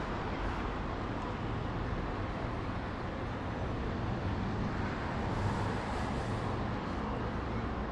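Dense city street ambience: steady traffic noise from cars and other vehicles, swelling slightly about five to six seconds in.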